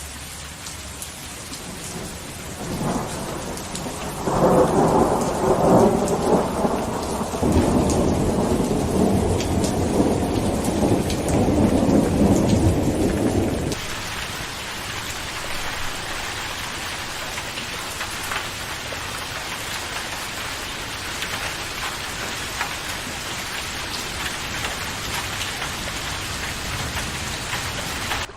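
Steady rain, with a long roll of thunder that begins about three seconds in, swells to its loudest around four to six seconds and cuts off abruptly about halfway through. After that the rain runs on as a brighter, hissier patter on surfaces.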